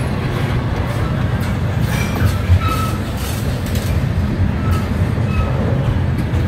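Double-stack intermodal freight train rolling past, its well cars giving a steady, heavy rumble and clatter of steel wheels on rail.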